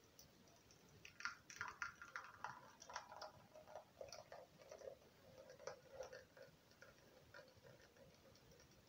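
Faint, irregular soft ticks and plops of thick homemade condensed milk pouring in a thin stream from a pan into a glass bowl. They thin out near the end.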